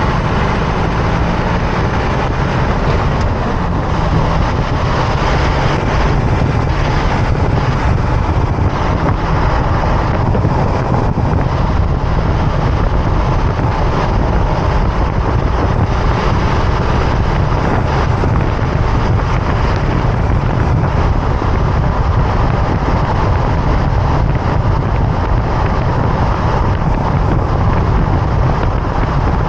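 Loud, steady driving noise of a 2024 Toyota Tacoma picked up from under the front of the truck: tyre noise on the road, wind on the microphone and drivetrain rumble, with a deep rumble the heaviest part.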